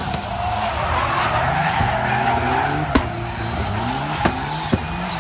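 Drift car driven hard: the engine revs up and down while the tyres squeal through a long slide. A few sharp cracks come in the second half.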